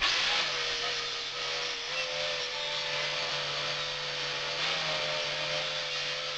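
A power tool running steadily: a loud hiss over a steady, slightly wavering whine, starting abruptly.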